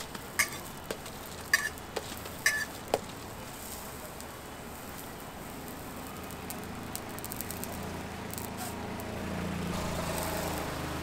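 Hotteok dough sizzling on an oiled steel griddle while a round metal hotteok press flattens it. There are several sharp metal clinks in the first three seconds, then a steady sizzle.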